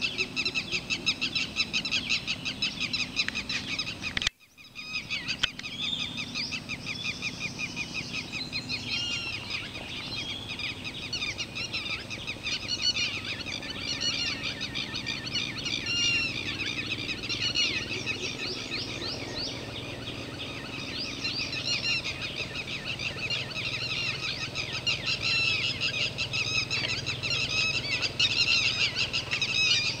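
Many birds calling at once in a dense early-morning chorus of fast, overlapping chirps and trills. The sound cuts out for a moment about four seconds in.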